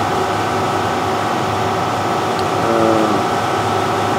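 Shop air compressor running steadily.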